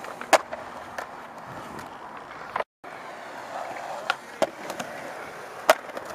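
Skateboard wheels rolling on concrete, with sharp clacks of the board hitting the ground: a loud one just after the start, a few more in the second half, and the loudest near the end. The sound cuts out for a moment a little under three seconds in.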